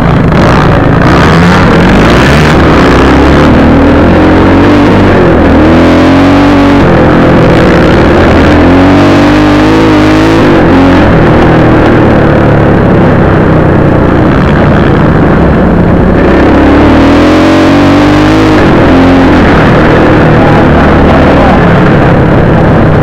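Close, loud onboard sound of a 250 cc dirt bike engine under way, its pitch rising and falling again and again as the rider opens and rolls off the throttle.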